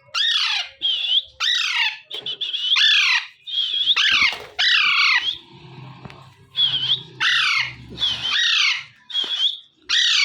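Alexandrine parakeet giving a run of loud, harsh squawking calls, about a dozen in quick succession, each falling in pitch, mixed with short clear whistled notes.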